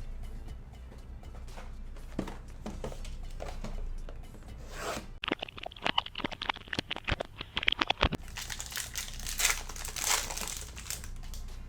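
Trading-card packaging being torn open by hand: a Panini Select blaster box and its foil card pack crinkling and tearing. A dense run of sharp crackles comes about halfway in, followed by a rustling tear.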